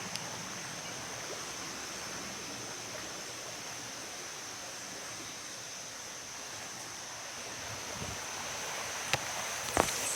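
Steady outdoor woodland ambience: an even rushing noise with a constant high-pitched tone, and a few short clicks about nine seconds in.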